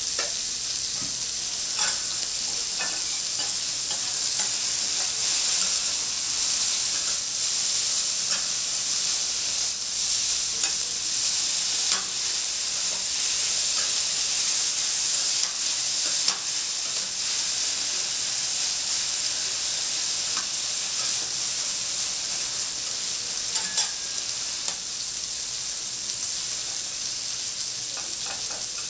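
Food frying on a hot teppanyaki iron griddle: a steady high sizzle, with short sharp clicks of metal spatulas against the plate every few seconds.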